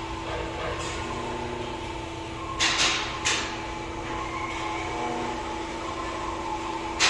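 6.2 L V8 of a 2016 Chevy Camaro running with a steady hum, broken by a few sharp clacks about three seconds in and again near the end. The engine ran low on oil and now makes noise; a cylinder 4 misfire was logged.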